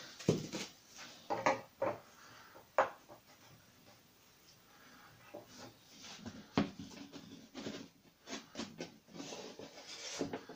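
Hand chisel paring and tapping wood out of a shallow routed recess in the edge of a tulip poplar door: a handful of sharp wooden knocks and scrapes in the first few seconds, then softer clicks and rustling of tool handling.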